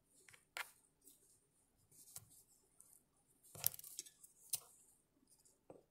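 Faint handling sounds of hand-sewing: a few short, sharp clicks and taps of small tools and items on a hard worktop while a thread is tied off on a felt piece. The loudest clicks come a little past the middle.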